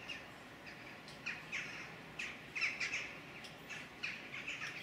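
A bird giving short, repeated chirping calls, irregular at first and coming several a second in the second half.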